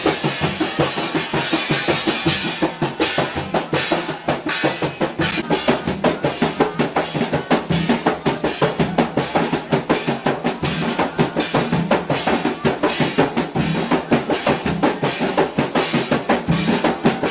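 Rebana Mandar frame-drum ensemble: several large hand-beaten rebana drums with a stick-played drum, in a fast, steady interlocking rhythm.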